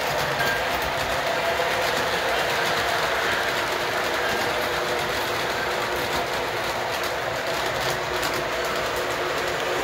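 Three-rail model train running steadily around the layout: an even whir of the locomotive's electric motor and gearing, with the wheels running over the track.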